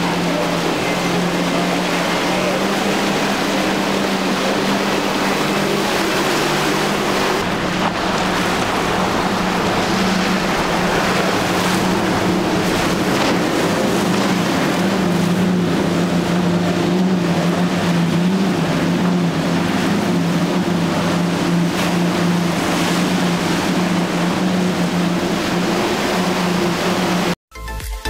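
Outboard engines on center-console boats running at high speed, a steady drone over the rush of the hull and spray through the water. It cuts off suddenly near the end.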